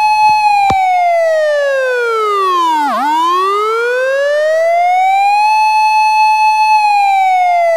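An electronic siren in a slow wail. It holds a high pitch, sweeps down to a low point about three seconds in, climbs back up and holds, then starts to fall again near the end. There is a single click just under a second in.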